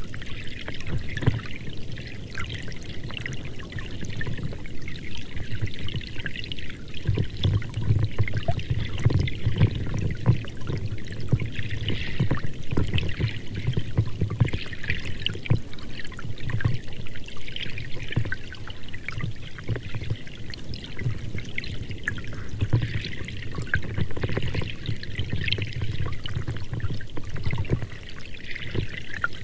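Running water, a steady splashing and trickling that goes on without a break.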